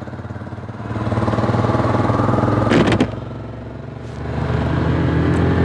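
Yamaha YBR-G motorcycle's single-cylinder engine pulling away, its revs rising about a second in. A sharp click near the middle, after which the engine goes quieter for about a second before picking up again.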